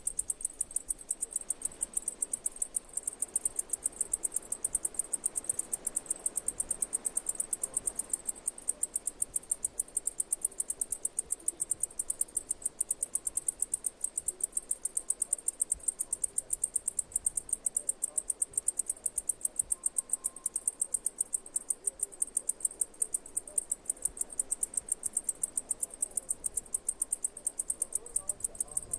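An insect chirping steadily: an even, unbroken train of high-pitched pulses, about four a second.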